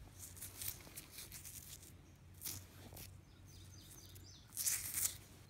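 Soft rustling and scraping from fingers handling a dirt-covered quartz arrowhead close to the microphone, loudest in a brief flurry near the end. A bird chirps faintly a little past the middle.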